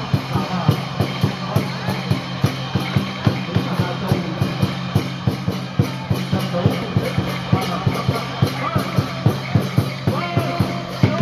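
Traditional Vietnamese water-puppet music: a quick, even percussion beat, about four strokes a second, over a steady low drone, with a melody coming through more clearly near the end.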